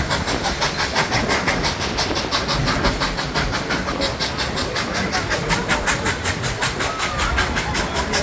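Dollywood Express steam train running along the track, heard from aboard, with a steady, rapid, evenly spaced beat.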